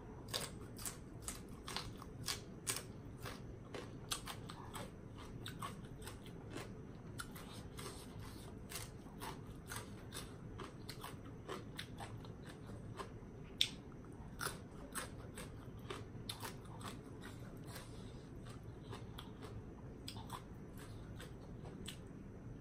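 Close-up chewing and crunching of papaya salad and crisp raw vegetables: many short, irregular crunches, a few each second.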